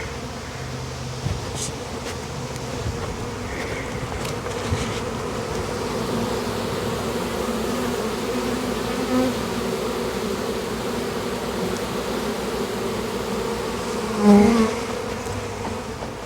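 Honeybee swarm buzzing: a steady, dense hum of many bees close by, with one louder swell of buzzing about fourteen seconds in.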